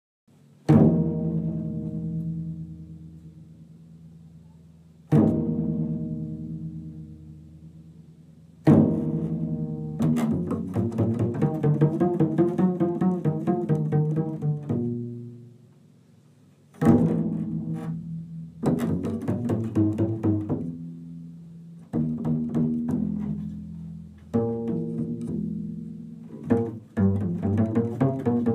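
Solo double bass music: single plucked notes ring out and fade, three of them a few seconds apart, then a quicker run of notes from about ten seconds in. After a brief fade past the middle, more plucked phrases follow.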